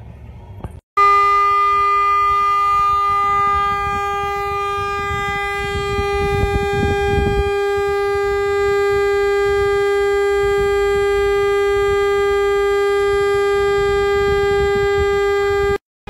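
A car horn sounding in one long unbroken steady tone, held down by a dog leaning on the steering wheel. It starts suddenly about a second in and cuts off abruptly near the end.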